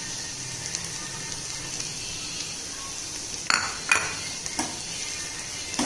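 Steel spoon stirring grated coconut into sautéed spinach in a stainless steel kadai, over a faint steady sizzle, with several sharp clinks of the spoon against the pan in the second half.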